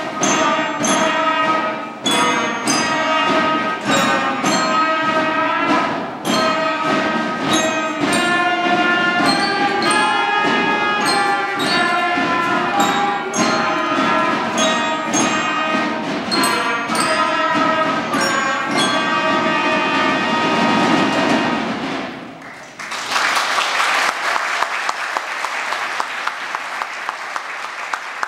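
A school band of flutes and trumpet, with a steady percussion beat, plays the end of a piece and closes on a held chord; about three-quarters of the way through, the audience breaks into applause.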